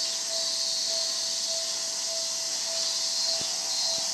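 Japanese railway level-crossing warning bell ringing in an even repeated ding, a little under two strikes a second, over a steady high hiss.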